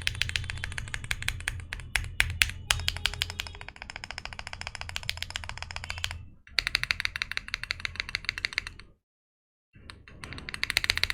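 Sugar65 aluminium 65% gasket-mounted mechanical keyboard with an FR4 plate and Leobog Greywood V4 switches, typed on fast in a sound test: a steady, rapid clatter of keystrokes with a few separate louder strikes about two seconds in. The sound drops out briefly about six and a half seconds in, and again for nearly a second around nine seconds.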